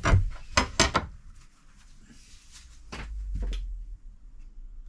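A few sharp handling knocks and clicks at a bench drill press, three close together at the start and two more about three seconds in, over a faint low rumble; the drill's motor is not running.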